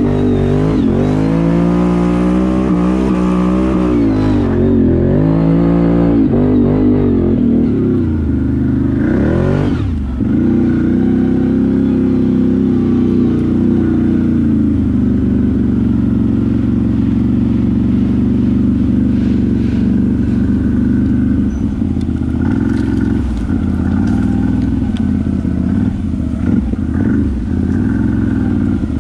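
ATV engine revving, its pitch rising and falling several times over the first ten seconds, then running steadily at higher revs.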